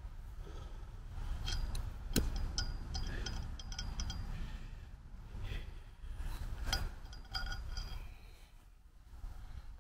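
Light metallic clinks and taps, each with a brief high ring, as metal guy-line fittings are handled against a steel post, with a low wind rumble underneath.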